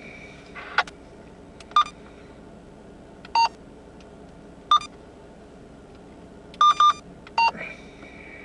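About seven short electronic key beeps at uneven intervals, like buttons pressed on a handheld device, two in quick succession about two-thirds of the way in, over a steady low hum inside the car.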